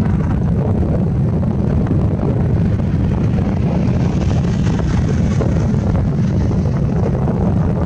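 Steady wind rumble buffeting the microphone, with a departing Westland Lynx helicopter's engine and rotor noise behind it as it flies away.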